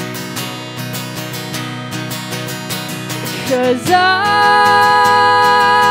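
Live worship band music: acoustic guitar strumming with keyboard in an instrumental gap, then about four seconds in a female voice comes in singing a long, held note on the word "Cause".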